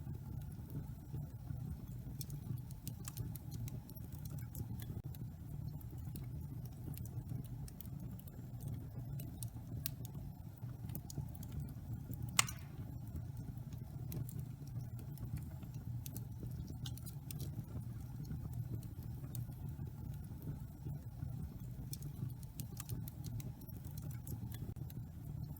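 Wood fire in a fireplace crackling, with scattered small snaps over a steady low rumble of the flames and one louder pop about halfway through.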